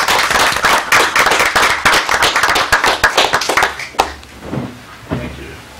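Audience applauding, many hands clapping, dying away about four seconds in and leaving faint voices.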